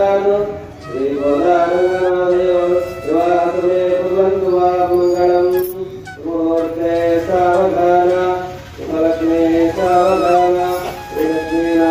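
Melodic devotional chanting in held notes, in phrases a few seconds long with short breaks between them, during a Hindu temple wedding rite.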